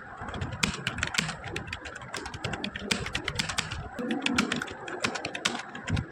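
Fast typing on a computer keyboard: rapid, irregular keystroke clicks, several a second, over a low background rumble.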